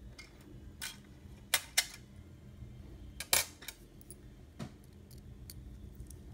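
A handful of light, sharp clicks and taps from handling a small N scale locomotive chassis, its tiny parts and a small screwdriver. The loudest are two quick clicks about a second and a half in and another just past three seconds.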